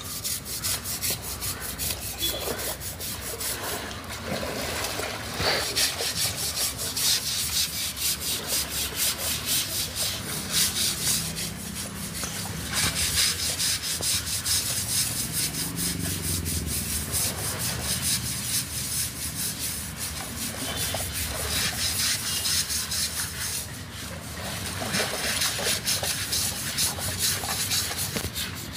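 Several men scrubbing an elephant's wet hide with hand-held blocks: many quick, repeated scrubbing strokes from different hands, overlapping one another.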